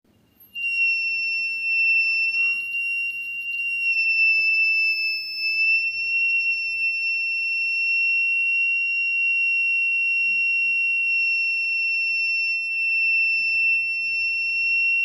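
Buzzer of a homemade fire-sensor alarm sounding one continuous high-pitched tone, starting about half a second in: the alarm has been triggered.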